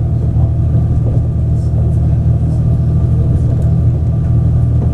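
DR3000-series diesel multiple unit running, heard from inside the passenger car: a steady diesel engine drone over wheel and track rumble.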